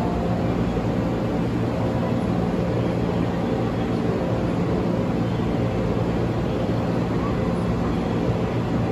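Steady low mechanical hum and rumble, holding a few low steady tones without rising or falling.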